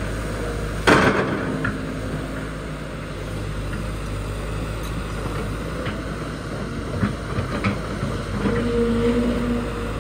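Sany SY200C excavator running steadily while digging out a tree stump, with a loud knock about a second in and a few smaller knocks later. A hydraulic pump whine comes in near the end as the arm works under load.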